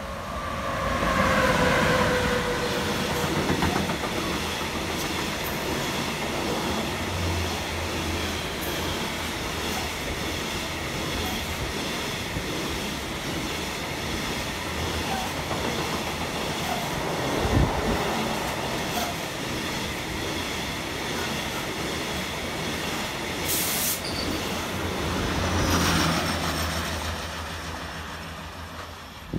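A train passing close by on the rails: a long, steady rumble of wheels running over the track, with a short falling tone about a second in.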